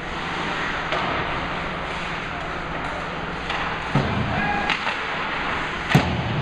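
Ice hockey play in an indoor rink: a steady hiss of skates on the ice with a handful of sharp clacks of sticks and puck, the loudest about six seconds in.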